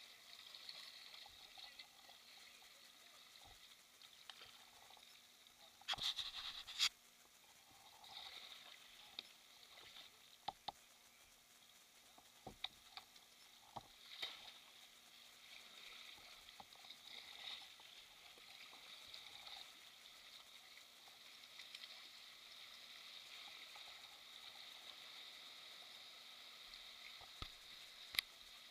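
Sea water lapping and fizzing softly around a kayak hull and nearby rocks, with scattered small drips, clicks and knocks from paddling. A louder burst of splashing comes about six seconds in.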